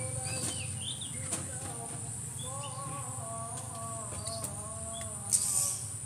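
Outdoor ambience of small birds chirping over a steady high insect drone. Faint drawn-out calls sound from about halfway through, and there is a brief rustle near the end.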